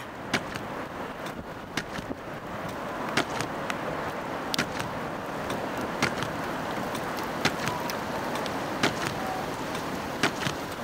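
Storm wind rushing steadily, with scattered sharp clicks and ticks throughout.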